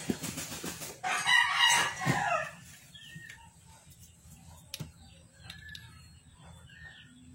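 A rooster crowing once, a loud call about a second in that lasts about a second and a half and falls at the end, followed by a few faint short calls.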